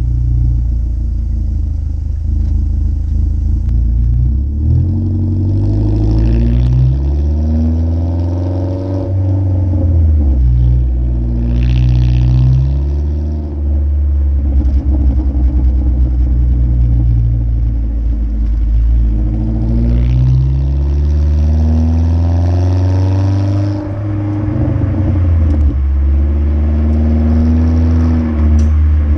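2015 Ford Focus SE's 2.0-litre four-cylinder engine, breathing through a muffler-deleted exhaust and an open K&N intake, pulling repeatedly under acceleration. Its pitch climbs and then drops back several times as it shifts or lifts off. A few short crackles and pops come from the exhaust in between.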